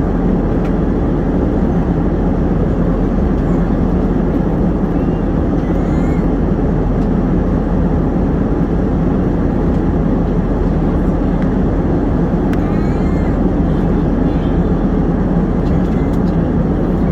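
Steady cabin noise of an airliner in flight: the even roar of the jet engines and the airflow over the fuselage, deep and unchanging.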